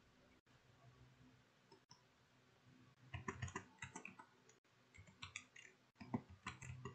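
Faint keystrokes on a computer keyboard: an uneven run of short clicks starting about three seconds in.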